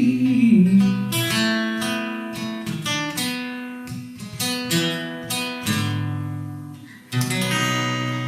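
Acoustic guitar playing the closing phrase of a song: the singer's last held note fades in the first second, then single plucked notes ring and die away one after another. About seven seconds in, a final strummed chord is struck and left ringing.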